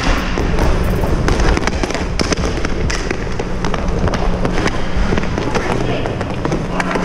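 Inline hockey play on a sport-court rink: a steady rush of inline skate wheels and air on the helmet camera, with repeated sharp clicks and clacks of sticks, puck and skates.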